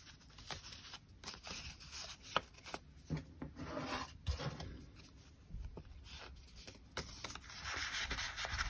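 Faint rustling and light taps of paper and card as a small paper envelope and sticker sheets are handled and slid into a paper pocket, with one sharper tick about two and a half seconds in and a fuller rustle near the end.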